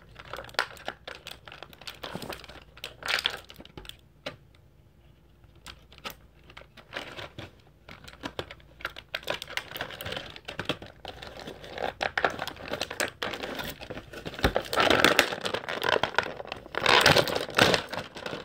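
Clear plastic blister packaging crinkling and crackling as it is handled, in irregular bursts with small clicks. It goes quieter for a couple of seconds about four seconds in and is busiest near the end.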